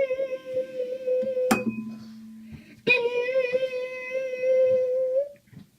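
A girl singing a long, steady high note into a microphone, then, after a sharp knock about a second and a half in, a second long note at the same pitch that stops near the end. She is holding the pitch to set a glass vibrating and break it with her voice.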